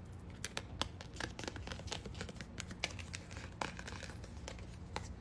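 A bookmark being handled close to the microphone: a string of light, irregular crinkles and taps.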